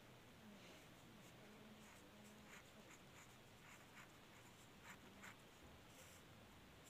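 Pen writing on notebook paper, very faint: a few soft scratching strokes spread through otherwise near silence.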